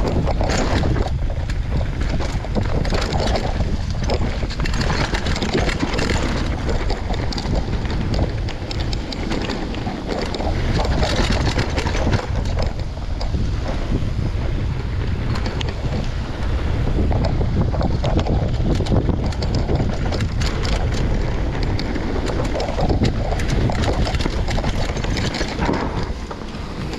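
Wind rushing over the microphone as a mountain bike descends a steep, rooty, rocky dirt trail, with the tyres rumbling over the ground and frequent clatters and knocks from the bike hitting roots and rocks.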